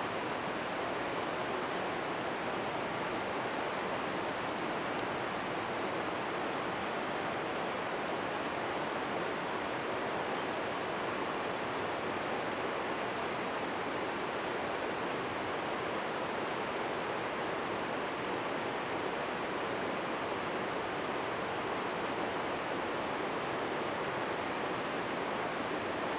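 Steady, even rush of a distant waterfall and rapids, with a thin steady high whine above it.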